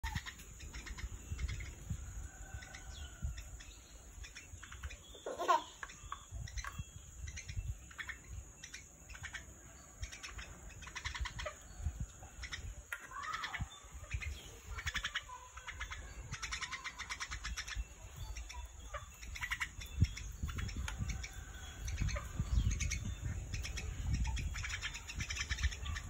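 Mynas chirping and calling in short, varied notes, some gliding up or down in pitch, with a quick run of repeated notes about halfway through.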